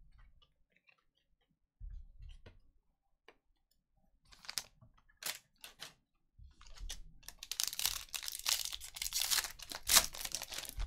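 A foil trading-card pack being crinkled and torn open, with a sharp rip near the end. Before it, a few light clicks and taps.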